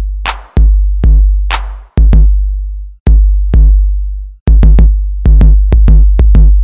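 Background music: an instrumental hip-hop beat from a drum machine, with long low bass notes that fade out and sharp clap and hi-hat hits, without vocals.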